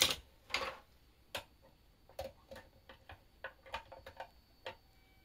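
Pens and markers clicking and clattering against each other and a pen holder as they are sorted and slotted in, about a dozen sharp, irregular clicks, the loudest near the start.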